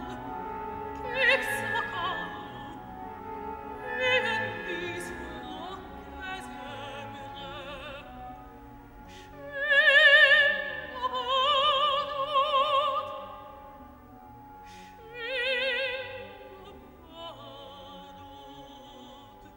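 Operatic soprano singing in Hungarian with a wide vibrato, in several phrases over a sparse orchestra. The loudest, highest phrase comes about halfway through.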